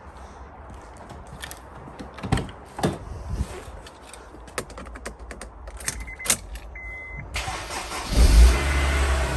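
Scattered clicks and knocks and a short steady beep, then about seven and a half seconds in the Honda S2000's four-cylinder engine cranks and fires up, running on an emergency jump-starter pack: it starts with the extra power, showing the car's own battery is flat.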